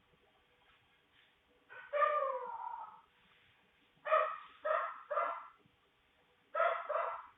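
Dog barking, with a thin, narrow sound like a doorbell camera microphone: a drawn-out call falling in pitch about two seconds in, then three quick barks and a pair of barks near the end.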